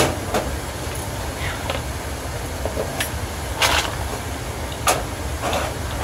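Steady low rumble of a running Trane rooftop HVAC unit, with scattered metallic clicks and clatters of hand tools being handled and searched through. The loudest clatters come about three and a half and five seconds in.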